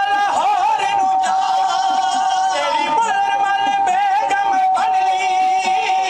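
Dhadi folk music: male voices singing a drawn-out, wavering vaar melody over the bowed sarangi, with a few taps on the dhadd, the small hourglass hand drum.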